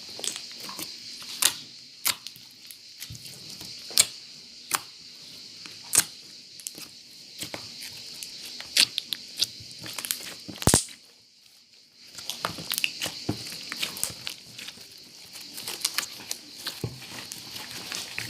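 Slime being squeezed and stretched by hand, making many sticky clicks, pops and crackles, with a brief quieter gap about two thirds of the way in.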